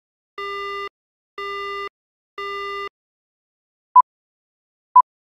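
Film-leader countdown sound effect: a buzzy electronic tone pulsing about once a second, three times, then after a short gap two short single-pitch countdown beeps a second apart.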